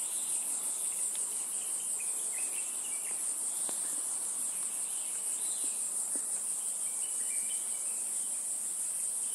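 Steady, high-pitched insect chorus with a fine rapid pulse, over which a few faint short chirps come and go.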